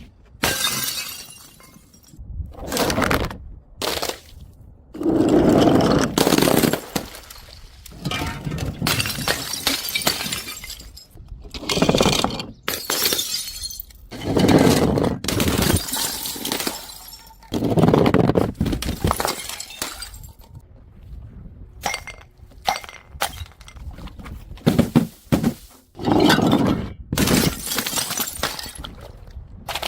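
Glass bottles breaking one after another: a series of separate crashes of shattering glass, a second or two apart.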